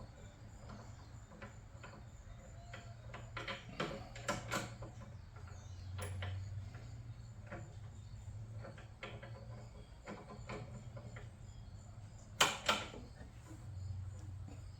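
Scattered clicks and knocks of hand tools and metal parts being handled while a replacement carburetor is fitted to a wood chipper's small engine, the two loudest knocks about twelve seconds in, over a steady low hum.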